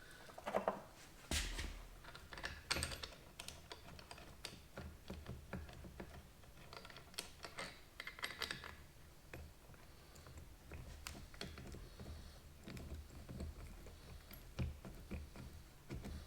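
Irregular light clicking and tapping, like small metal parts and tools being handled.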